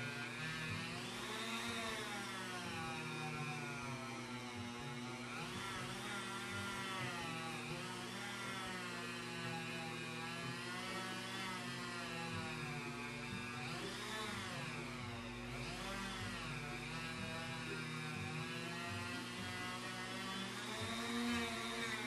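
Small rotary tool (Dremel) spinning a polishing wheel against a Zippo lighter's metal case. Its motor whine rises and dips in pitch every second or two as the wheel bears on the metal, over a steady low hum.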